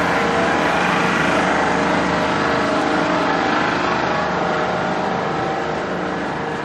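Diesel railcar engine running steadily, a constant hum made of several held tones that eases slightly near the end.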